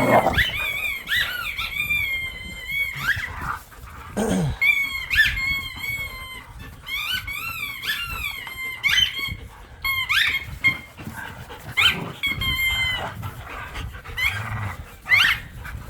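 Pit bulls playing tug, with a squeaky toy squeaking in quick, high-pitched bursts as it is chomped, over low dog growling.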